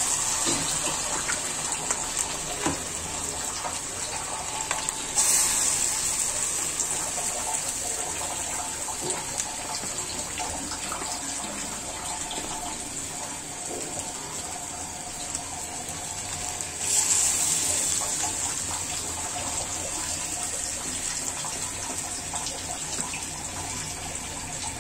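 Lentil-and-rice batter fritters (piyaju) deep-frying in hot oil in an iron kadai, a steady sizzle that jumps louder twice, about five seconds in and again past the middle, as fresh batter drops into the oil.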